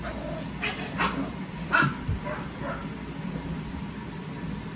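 Rottweiler and Staffordshire terrier puppies play-fighting, giving a handful of short, high yips and barks in the first few seconds, then going quieter.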